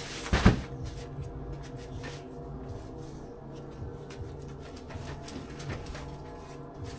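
A heavy sack of cement thuds down onto a stack of bags about half a second in, followed by a few softer bumps and scuffs as more sacks are handled, over a low steady hum.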